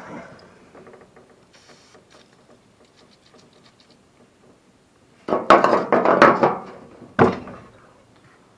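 Quiet handling for about five seconds, then a loud burst of clattering knocks from tools or parts being handled, ending in one sharp knock.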